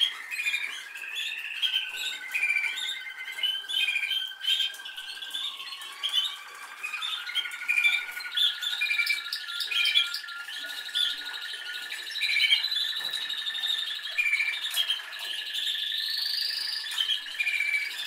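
Domestic canary singing a continuous song: quick chirped notes over long rolling trills.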